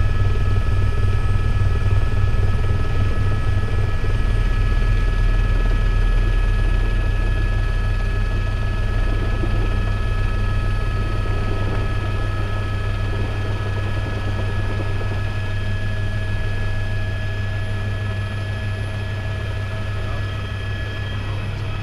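Tour helicopter heard from inside its cabin in flight: steady rotor and turbine noise with a low throbbing beat and a thin high whine on top, easing slightly in loudness towards the end.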